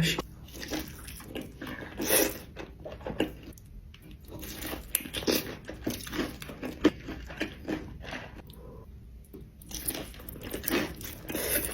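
Close-miked mukbang eating: crunchy bites and chewing in an uneven series of short sounds, with a few louder crunches about two seconds in, in the middle and near the end.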